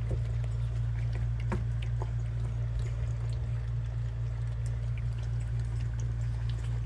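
Several puppies lapping and slurping milk, with scattered small wet clicks, over a steady low hum.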